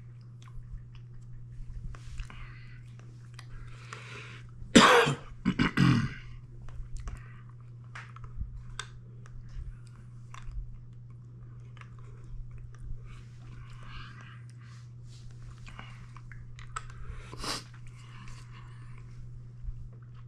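Wet clicking and sucking mouth noises from a man working a large cinnamon-flavoured hard lollipop in his mouth, with breathy exhalations. Two loud bursts from the throat about five seconds in and another near the end, over a steady low hum.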